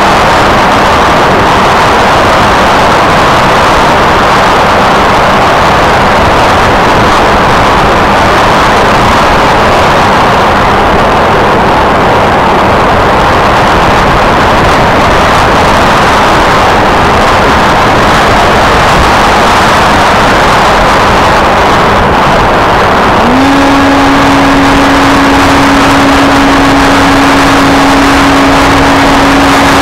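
Wind rushing over the onboard camera's microphone on an F27C Striker flying wing in flight, with the steady drone of its electric motor and propeller; about 23 seconds in the drone jumps up in pitch as the motor speeds up.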